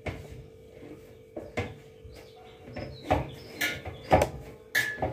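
Semolina dough being kneaded with the fists in a large brass parat: irregular soft thumps and knocks, about eight of them, the one near the end ringing briefly off the metal plate. A faint steady hum runs underneath.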